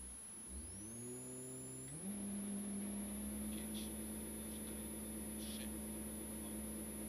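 Rally car engine revved up over a couple of seconds and then held at steady high revs with the car stationary on the start line, ready to launch, with a faint high whine above it.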